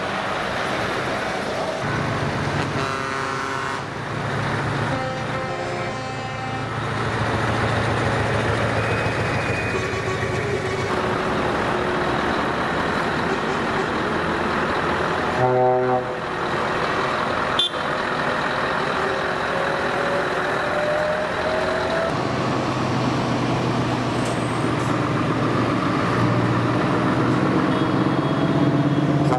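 Scania V8 trucks driving past one after another, engines running, their pitch climbing slowly as they pull through. A short horn toot sounds about halfway through.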